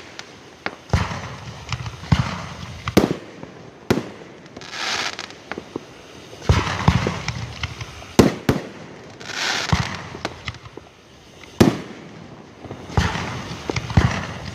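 Aerial fireworks display: shells bursting with sharp booms about once a second, irregularly spaced, with a few roughly one-second stretches of high hissing between them.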